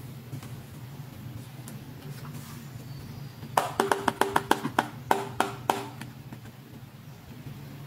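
Pink toy mobile phone with a Disney Princess front playing a quick string of about a dozen short electronic notes, with a brief gap in the middle, lasting about two seconds, starting about three and a half seconds in as it is pressed.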